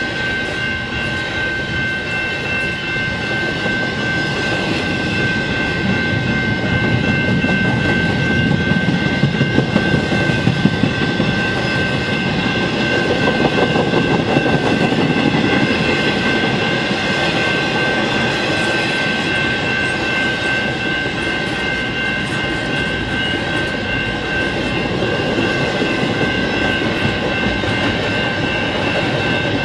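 Double-stack intermodal container well cars rolling past over the rails: steady wheel rumble and clatter, with a few sharper clacks about eight to eleven seconds in. Over it a General Signals Type 2 electronic crossing bell keeps ringing steadily.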